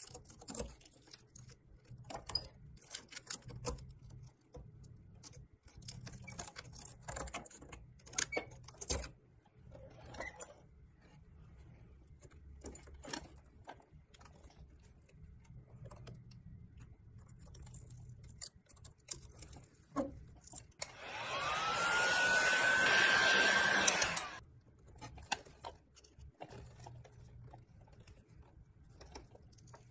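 Screwdriver tip scraping and prying at the rusted steel hubcaps of a pressed-steel toy truck's rubber wheels: scattered scrapes and clicks. About 21 seconds in, a small motor whines up to a steady pitch with a rush of air for about three seconds, then stops.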